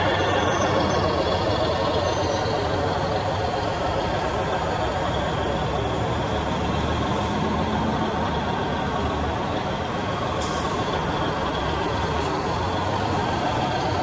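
Radio-controlled model trucks and excavator running, a steady mechanical din with a short hiss about ten seconds in.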